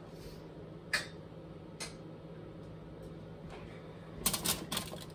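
Potato chunks being set down on a foil-lined sheet pan: single clicks and crinkles of the aluminium foil about one and two seconds in, then a quick cluster of clicks near the end. A steady low hum runs underneath.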